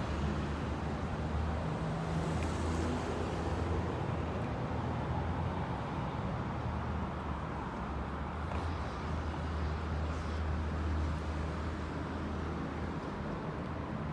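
Road traffic at a city intersection: vehicles running, with a steady low engine hum over a constant wash of traffic noise.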